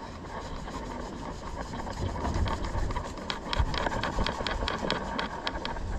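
Kitchen knife sawing through the chafed-through cover of a braided rope sheet on a wooden cutting board: a quick run of short rasping cutting strokes, about five a second, starting about two seconds in, over a steady low rumble.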